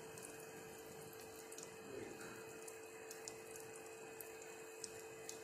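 Breaded chicken drumsticks deep-frying in hot oil in a kadhai: a soft, steady sizzle with scattered small crackles and a faint steady hum underneath.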